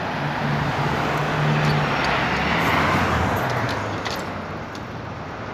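Road traffic: a car passing on the street, its engine and tyre noise swelling to a peak about halfway through and then fading, with a few light clicks.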